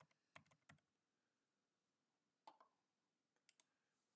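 Faint keystrokes on a computer keyboard: a quick run of taps near the start, then a single tap about two and a half seconds in and a close pair about a second later.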